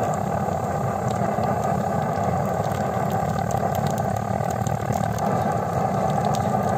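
A pump-pressurised blowtorch burning steadily under a frying pan: a constant low rushing noise with no breaks.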